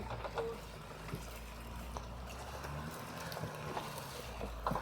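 Off-road vehicle engines running at low revs with a steady low hum while a Bronco tows a stuck Jeep on a strap, with a few small clicks.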